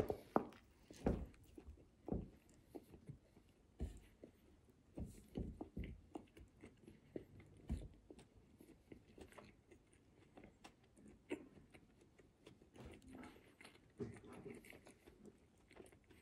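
A person biting into a soft-bread ham and cheese sandwich and chewing it close to the microphone: irregular small smacks and mouth clicks. They are louder and more frequent in the first half and sparser and fainter in the second half.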